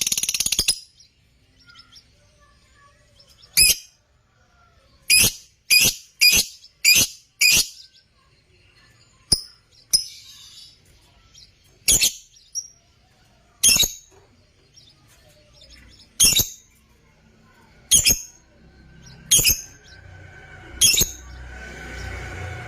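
Parblue lovebirds giving short, sharp, high-pitched chirps: a quick run of five about five seconds in, then single chirps every second or two. Near the end a low rumble and fainter softer sounds rise underneath.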